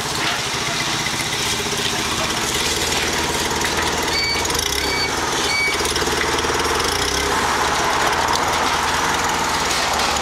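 Propane-powered Komatsu forklift engine running steadily while it works a pallet into a shipping container. Three short high beeps sound about midway.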